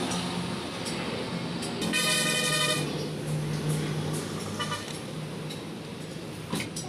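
Road traffic with a vehicle engine running steadily, a vehicle horn honking for just under a second about two seconds in, and a shorter toot near five seconds. A sharp knock comes near the end.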